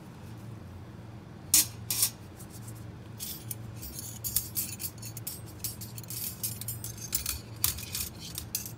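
Stainless steel orthodontic hand instruments clinking against a metal instrument cassette as they are set down and handled: two sharp clacks about a second and a half in, then a run of lighter clinks and rattles, over a low steady hum.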